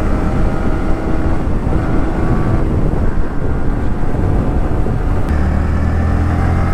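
Sport motorcycle engine running while riding at speed, with wind noise on the bike-mounted camera's microphone. The engine note shifts a few times, and a deeper, steadier hum comes in about five seconds in.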